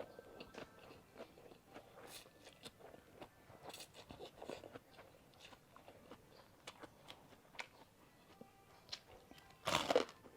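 Close-miked eating of a bowl of Thai boat noodles: soft chewing and mouth clicks with short noisy bursts, the loudest about ten seconds in.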